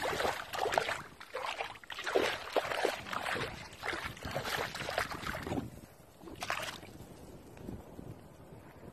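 Splashing steps through shallow water, one or two a second, dying away about seven seconds in to a faint steady wash.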